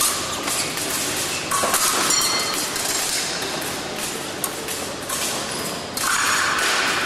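Épée fencing bout: irregular clicks and clatter of blades and fencers' feet, with a louder stretch about six seconds in.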